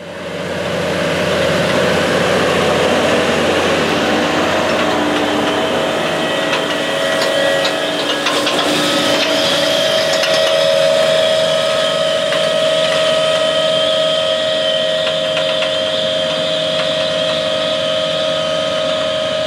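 A 620 hp Case IH Quadtrac tractor running steadily under load as it pulls a 16-row Orthman 1tRIPr strip-till bar through corn stalks, with a steady whine. A few clicks and rattles from the implement come about halfway through.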